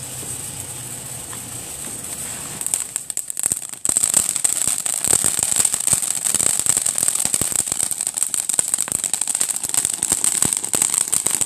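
Consumer ground fireworks fountains spraying sparks with a steady hiss; about four seconds in it turns louder into dense, rapid crackling that goes on without a break.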